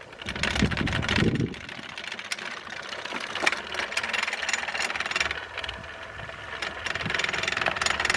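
Brushed DC motor with a threaded bar fixed to its shaft starting up and running directly off a solar panel, with a rattly vibration; its sound swells and dips and grows louder near the end as the panel's output changes.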